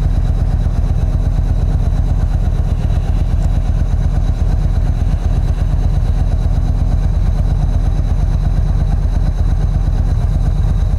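Yamaha V-Star 1300's V-twin engine idling steadily, a low, even pulsing rumble.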